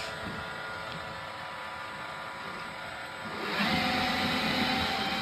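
iRobot Roomba 900-series robot vacuum running, a steady whir of its motors and brushes that steps up louder about three and a half seconds in.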